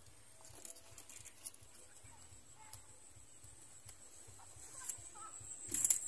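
Faint rustling and crackling of dry palm fronds and leaf litter, growing louder near the end, over a steady high thin whine.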